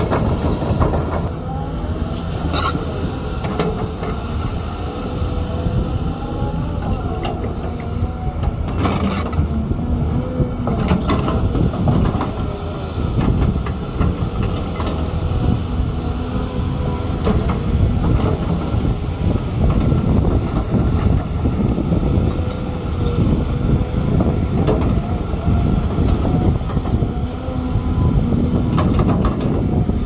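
Cat 320 hydraulic excavator working: its diesel engine and hydraulics run steadily under load while the steel bucket digs through dirt and stones, with a few sharp knocks and scrapes from the bucket on rock.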